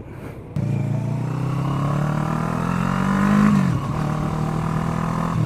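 Kawasaki ER-6n motorcycle's parallel-twin engine pulling hard, its note rising steadily from about half a second in, then dropping sharply a little past three seconds in, as at an upshift, and running on steadily.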